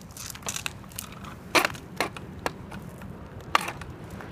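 Razor Flash Rider 360 drift trike rolling on concrete: irregular sharp clicks and crackles over a steady low rumble, with a louder crack about a second and a half in.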